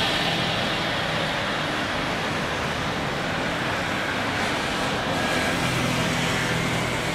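Airbus A350's Rolls-Royce Trent XWB turbofan engines running steadily at taxi power as the airliner taxis past, with a low drone that strengthens about five and a half seconds in.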